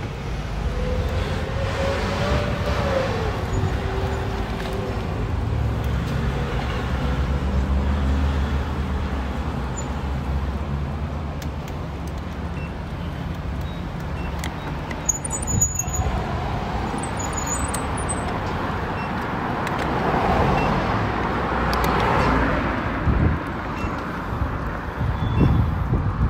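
Road traffic: a car engine running at low speed close by, with a swell of passing-vehicle noise about twenty seconds in.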